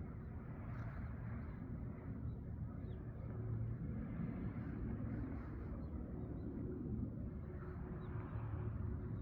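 Steady outdoor rumble, strongest low down, with a faint steady hum and small faint high chirps over it.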